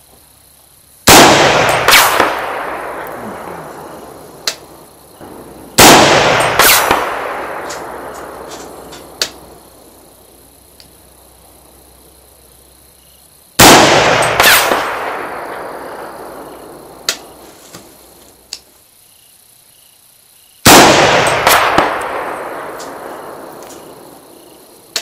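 Four shots from a 10.5-inch-barrelled 300 Blackout AR pistol firing supersonic 110-grain loads, several seconds apart. Each sharp report is followed by a second crack about a second later and a long echo that dies away over three or four seconds.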